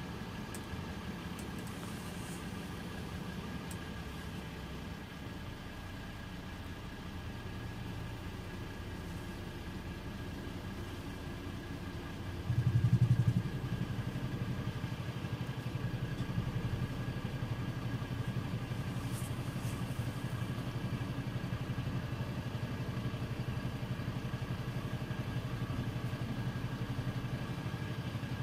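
Mercedes-Benz Citaro C2 LE city bus's OM 936 six-cylinder turbodiesel idling with a rough, rattling sound. Near the middle a loud burst lasts about a second. After it the idle runs louder, with a steadier throb.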